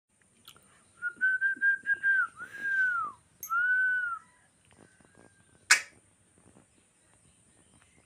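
Whistling: a quick run of short, even notes, then two long arching whistles that rise and fall in pitch. A single sharp click follows a couple of seconds later.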